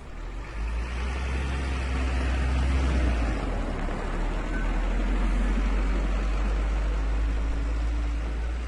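Truck engine pulling away: a heavy low rumble that builds over the first second as it moves off, holds with shifting engine tones, then eases a little near the end.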